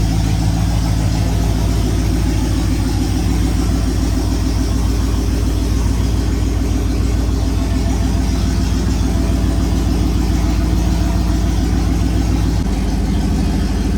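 Holden V8 in a VK Commodore idling steadily just after being brought back to life, warming up.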